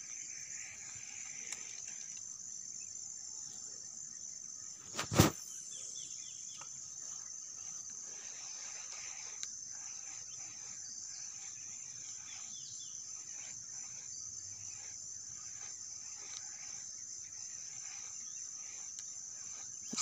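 Insects chirping in a steady, high-pitched chorus, with one sharp knock about five seconds in.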